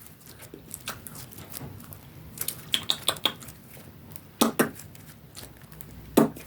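Slime being kneaded and shaped by hand, giving scattered small wet clicks and pops, with a few sharper ones.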